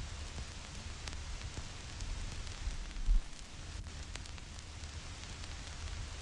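Vinyl record surface noise: a steady hiss with scattered crackles and pops from the stylus in the groove, over a low rumble. A louder low thump about halfway through.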